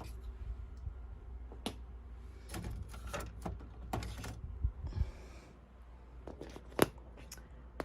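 Irregular plastic clicks and knocks as old ink cartridges are unlatched and pulled out of a Canon inkjet printer's print head, with a single sharp snap near the end the loudest.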